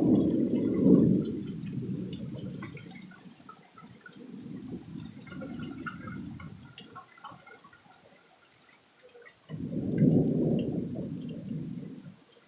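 Thunder rolling in a severe storm: a loud rumble at the start that dies away, a weaker roll a few seconds later, and another sudden rumble near the end, with faint patter of rain.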